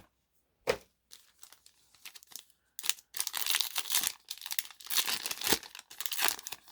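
A foil Yu-Gi-Oh! booster pack wrapper being torn open and crinkled. One short crackle comes about a second in, then about three seconds of continuous tearing and crinkling.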